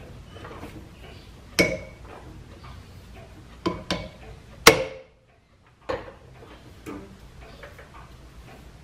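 A hammer tapping a piston-ring casting clamped on a lathe faceplate to true it up so it runs as true as possible: about six sharp metallic knocks with brief ringing, spaced irregularly, the loudest about halfway through.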